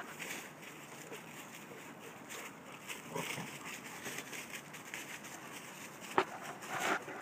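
Two dogs play-fighting in dry leaves: growling, with paws scuffling and rustling through the leaves. There is a sudden sharp sound about six seconds in, and the loudest burst just before the end.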